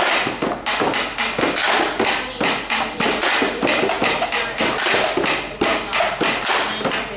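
Several RuBBaBox hand-percussion boxes being drummed with the hands together, making a fast, busy, overlapping rhythm of taps and thumps.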